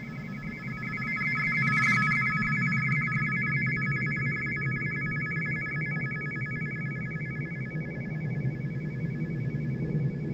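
Electronic satellite fly-by sound: a steady high chord of three tones with a fast flutter, over a low droning hum, swelling about two seconds in.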